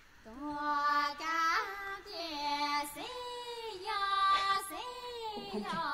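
Music with a high voice singing a slow melody of long held notes that slide up and down between pitches.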